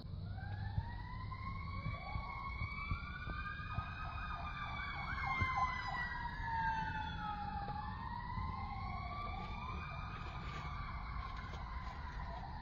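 Sirens of several fire engines wailing at once, their slow rising and falling tones overlapping, with a fast yelp for a second or so about four seconds in. A low rumble runs underneath.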